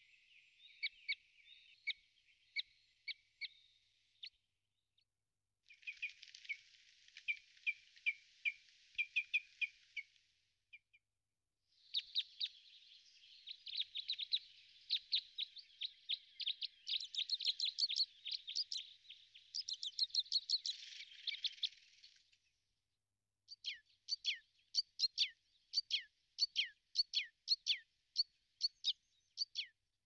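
Small songbirds chirping and trilling in quick runs of high, sharp notes. The singing comes in several separate stretches, broken by three short, fully silent gaps.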